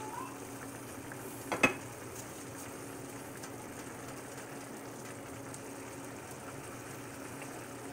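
Tomato sauce with meatballs simmering in a cast iron skillet, a steady low sizzle. About a second and a half in, a sharp double knock as the wooden spatula is lifted out against the pan.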